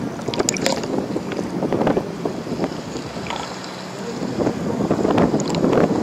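Wind buffeting the microphone, with crackles and knocks throughout.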